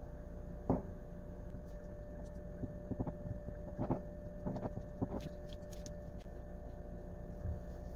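Small kitchen knife cutting through a slice of bread on a countertop, with a handful of short, light knocks and scrapes as the blade works around the shape and meets the counter. A steady low hum runs underneath.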